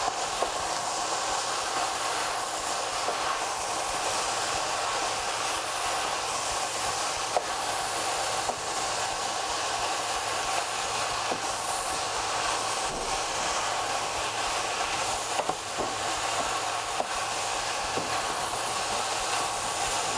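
Sliced red cabbage, carrot and peppers sizzling steadily in a little olive oil in a hot stainless steel pan as they are stir-fried with a wooden spoon, with a few brief knocks of the spoon against the pan.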